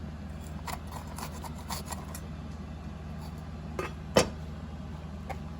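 Kitchen handling sounds: light scraping and scattered clicks of utensils and dishes, with one sharper knock about four seconds in, over a steady low hum.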